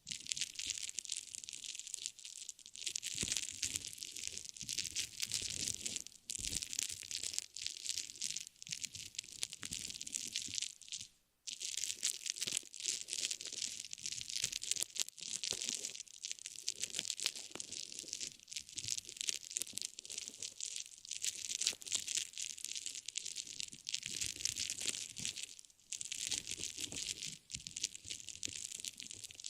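Close-up, continuous crinkling and crackling of an object being handled, with a brief pause about eleven seconds in.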